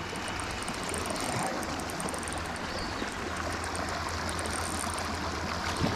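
Small creek water running steadily over a shallow riffle, a continuous rushing hiss, with faint high ticking.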